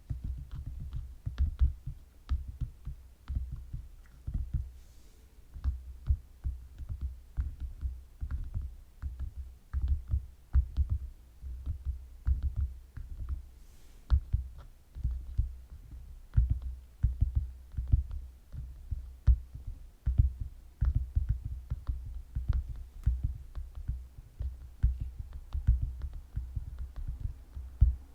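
Fingertips tapping in quick, irregular runs, each tap a soft low thud with a light click on top.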